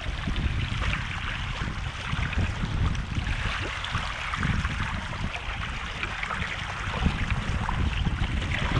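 Wind buffeting the microphone over the steady rush and splash of water along a sailing canoe's hull as it moves through choppy water.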